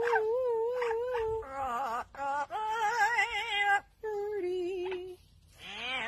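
An Amazon parrot singing: a string of held notes with a strong wobbling vibrato, broken by short pauses, and dying away shortly before the end.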